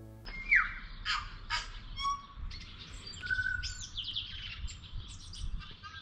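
Tui singing: a varied, busy run of whistled notes, quick downward glides and short held notes, starting about a quarter of a second in.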